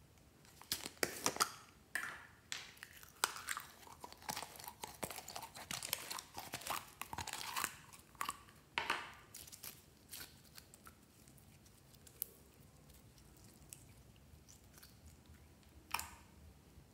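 Thick green slime being squeezed and scooped by hand out of a small plastic jar: wet squishing with crackling and popping air pockets, dense for about the first ten seconds, then only an occasional click, with one sharp one near the end.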